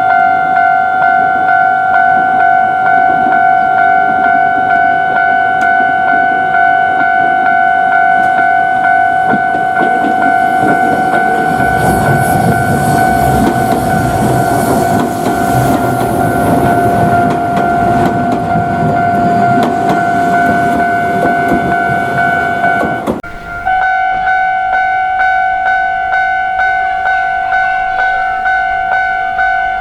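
Japanese level-crossing warning bell ringing steadily with a fast repeating pulse, while an Iyo Railway Takahama Line electric train passes through the crossing. The train's rumble and wheel noise build about a third of the way in, are loudest for several seconds and fade by about three-quarters through. The bell drops out for a moment just after that, then rings on.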